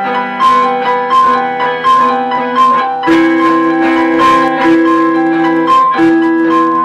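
A small band playing an instrumental piece: a repeating figure of short, bright notes, about three a second, over held lower notes. A new held lower note comes in about three seconds in.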